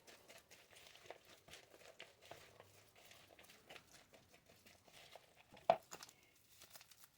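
Faint kitchen handling noises during sandwich making: light rustling and small scattered clicks, with one sharper click about three-quarters of the way through.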